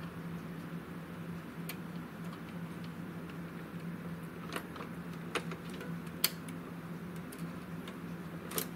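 Small, sharp clicks of plastic and metal parts being handled by hand inside an opened Epson L3110 inkjet printer, about five of them scattered through, the loudest a little after six seconds in, over a faint steady hum.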